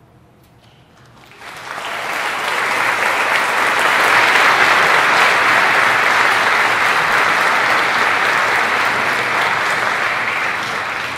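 Large audience applauding. The clapping starts about a second and a half in, swells to a full, steady ovation, and begins to fade near the end.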